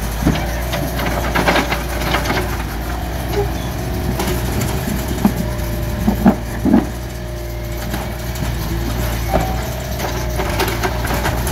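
Mini excavator's engine running steadily while its bucket scrapes and digs through dirt and rubble, with crunching and several sharp knocks, the loudest about six to seven seconds in.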